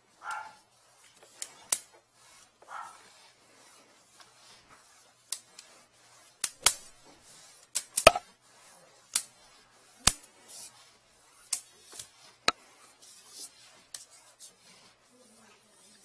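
Scattered sharp clicks and knocks, about fifteen at irregular intervals, as the drain-inspection camera's push cable is fed from its reel into the pipe.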